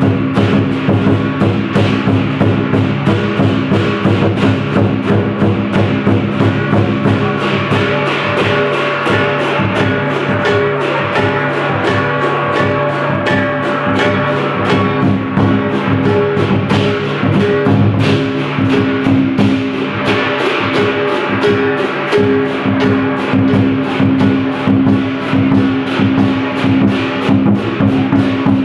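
Lion dance percussion played live: a lion dance drum beaten in a fast, steady rhythm, with a gong and several pairs of cymbals struck in time and the ringing of the metal held underneath.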